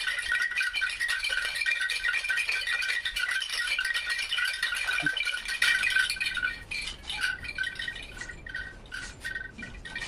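Handmade bamboo wind chime clattering, its hollow bamboo tubes knocking together and ringing with a few steady hollow tones. The clatter is dense for the first six or so seconds, then thins to sparser knocks as the swinging dies down.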